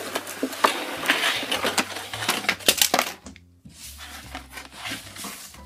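Clatter and rustle of objects being cleared off a desk: a plastic water bottle, packaging and a clear plastic tray knocked together and handled, with many quick knocks and crinkling, busiest in the first three seconds and lighter after.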